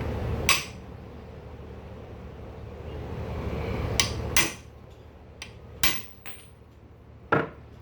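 Sharp hammer strikes on metal, about six irregular blows, while a part of a Cub Cadet 70 garden tractor's rear end is held in place during reassembly.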